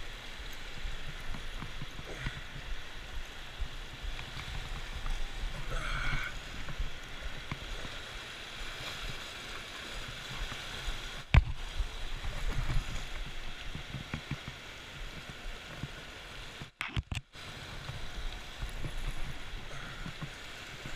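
Fast river whitewater rushing steadily beside the rocks below a dam, with low rumble and bumps of handling on the camera. A single sharp knock comes about eleven seconds in, and the sound cuts out briefly near the end.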